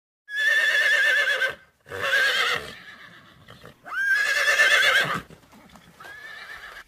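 Horse whinnying: three loud whinnies with a quavering, wavering pitch in quick succession, then a fainter, shorter one near the end.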